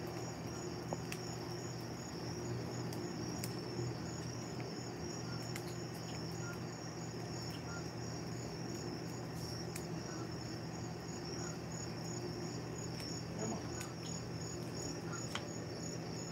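Crickets chirping in a steady, high, pulsing trill over a steady low hum, with a few faint clicks.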